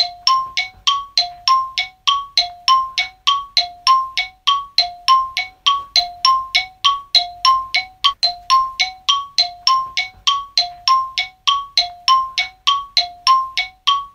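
A looping bell-like chime pattern: short struck notes alternating between a lower and a higher pitch in a quick, even rhythm, stopping abruptly at the end.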